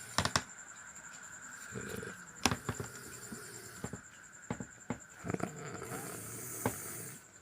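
A person snoring in their sleep: two rough snoring breaths about three seconds apart, the second followed by a long hissing out-breath, with scattered sharp clicks and a faint steady high whine underneath.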